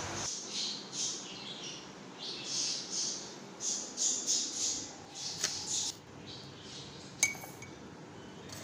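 A run of short soft rustling swishes as kitchen things are handled, then a metal spoon tapping against a ceramic cup with a brief ring, about seven seconds in.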